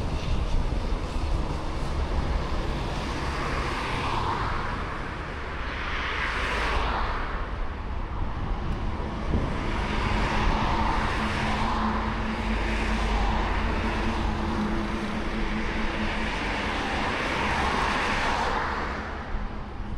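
Outdoor ambience: wind rumbling on the microphone and a rushing noise that swells and fades every few seconds, with a steady distant engine hum through the middle stretch.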